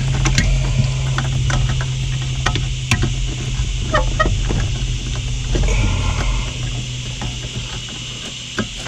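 Scattered sharp clicks and handling noise of plastic wiring connectors being pushed into a car stereo amplifier, over a steady low hum.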